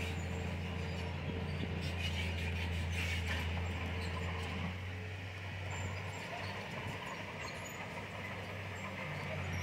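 Komatsu D31PX crawler bulldozer's diesel engine running steadily under load, with rattling clatter from the tracks and blade. The engine note eases about halfway through and picks up again near the end.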